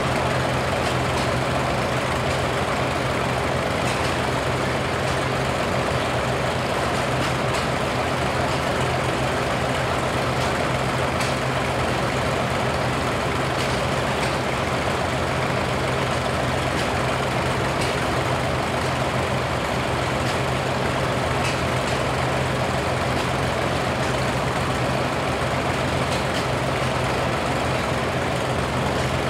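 Vintage Oliver and Farmall farm tractor engines idling, a steady low hum that holds one speed without revving.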